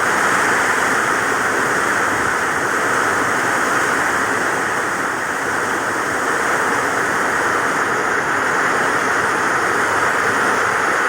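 Heavy rain pouring down in a windstorm: a loud, steady rushing hiss that never lets up.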